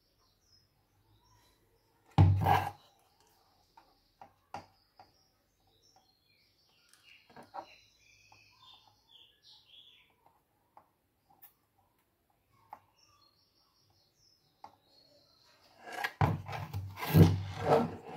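Handling noise of a computer motherboard and tools on a workbench: a loud thump about two seconds in, a few light clicks, then a longer run of knocking and rubbing near the end. Faint bird chirps sound in the background.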